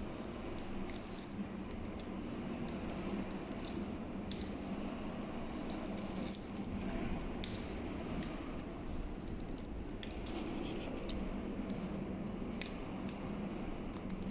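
Small metal clicks and scrapes of screws and a hand screwdriver being handled and turned while the handlebar clamp plate is screwed down, over a steady low room hum.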